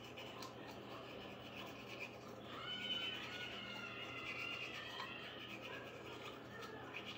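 Manual toothbrush scrubbing teeth: a faint, scratchy rubbing, a little louder around the middle.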